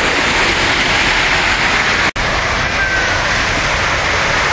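Steady rushing noise of rain and floodwater on a street, with cars driving through the water. The sound cuts out for an instant about two seconds in.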